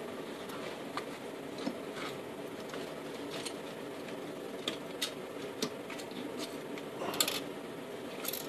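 Irregular light metallic clicks and clinks of a hand tool and loose bolts as a KE-Jetronic fuel distributor is unbolted and lifted off, with a quick cluster of clinks about seven seconds in. A steady low hum runs underneath.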